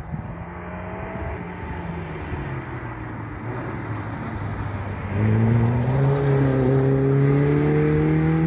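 Rally car engine approaching at moderate revs and easing off for a bend. About five seconds in it gets much louder as the car accelerates hard away, its pitch climbing steadily.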